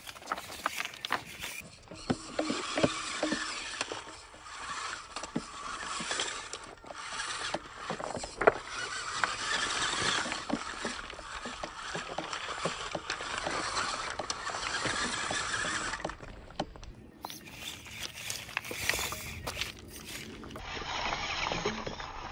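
Small electric RC rock crawler driving over loose rounded pebbles: a steady noise from the running car with frequent clicks and clatters of stones under its tyres.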